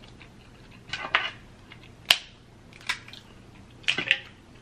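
Snow crab leg shells cracked and snapped apart by hand: several sharp cracks about a second apart, the loudest about two seconds in.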